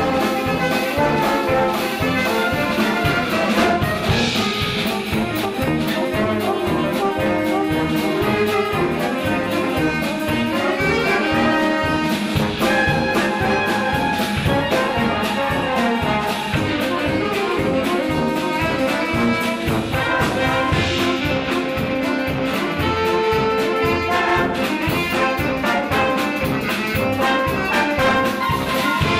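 Wind band playing a tune: tubas, tenor horns, flugelhorns, clarinets and saxophones together over a steady beat.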